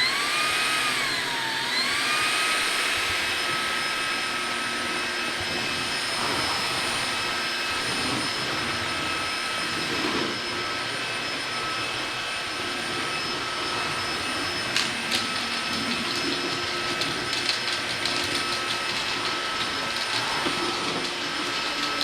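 Vactidy V9 cordless stick vacuum's brushless motor running with a steady high whine and rushing air. Right at the start the whine steps up in pitch as the speed setting is changed, dips briefly, then holds higher. Scattered light clicks and ticks come in the second half.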